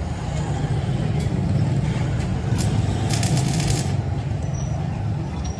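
A machine running with a steady low hum, and a short burst of rapid clicking and rattling about three seconds in.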